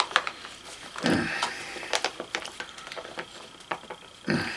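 A spoon scraping and clicking against the plastic cup of microwaved chicken-and-rice as it is eaten from. There is a series of short scrapes and taps, with two heavier knocks or rustles about a second in and near the end.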